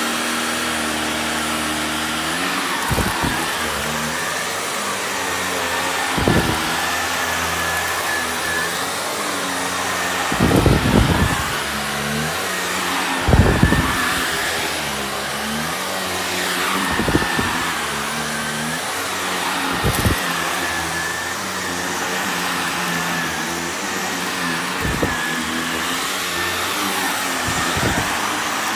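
Upright vacuum cleaner running on a rug, its motor hum with a steady high whine, the pitch wavering up and down as it is pushed back and forth. Brief thumps come every few seconds.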